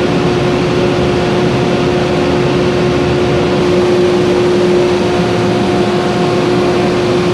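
Glass furnace burner and blower running steadily: an even rushing noise with a constant low hum over it.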